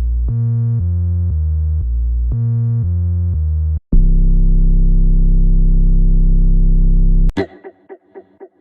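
Synthesizer bass playing a short line of low notes, about two a second, then one long, louder held note for about three and a half seconds that cuts off abruptly. Near the end a quieter run of short, quick notes begins.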